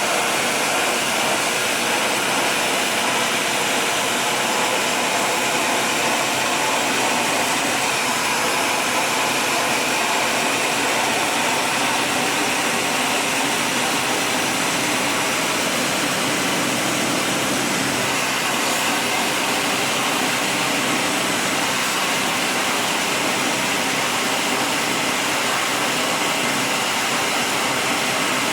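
Pressure washer pump running while its water jet sprays an air-conditioner coil, a steady hiss of spray over a low pump hum.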